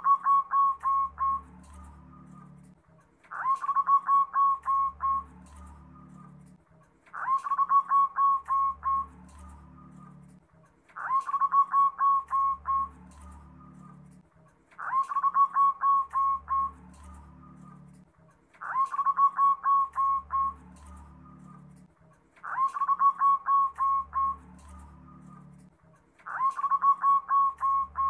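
Zebra dove (perkutut) singing. Its cooing song comes in phrases of about two seconds, each a quick run of repeated notes, eight times at an even pace of about one phrase every four seconds.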